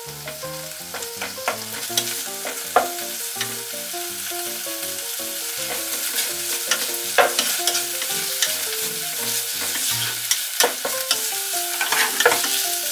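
Chopped kimchi frying and sizzling in sesame oil in a nonstick pot, stirred and scraped with a wooden spatula, with frequent sharp clicks of the spatula against the pot. A soft background melody plays under it.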